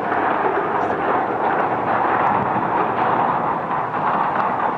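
Steady rumbling roar of a blasted steel truss bridge span collapsing into the canal, with debris and water crashing as it falls.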